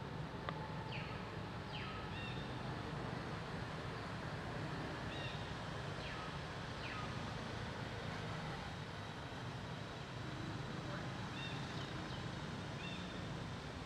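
Steady outdoor background rumble with short, high chirps and quick falling calls scattered through it.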